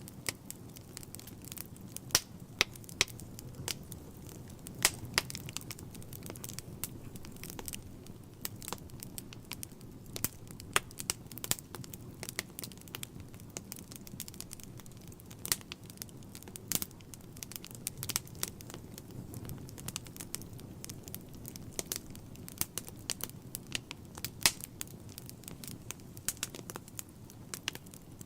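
Log fire burning in a fireplace, crackling with irregular sharp pops and snaps over a low steady sound of the flames. A handful of louder snaps stand out.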